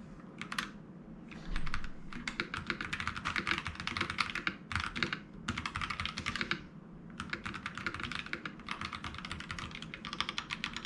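Fast typing on an FL-ESPORTS CMK87 mechanical keyboard with Ice Mint switches and PBT keycaps: dense runs of rapid keystroke clacks broken by a few brief pauses.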